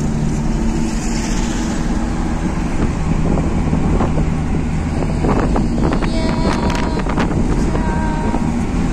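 Premier Padmini's four-cylinder petrol engine running steadily while the car is under way, heard from inside the cabin with wind and road noise. A few short clicks and knocks come about five to seven seconds in.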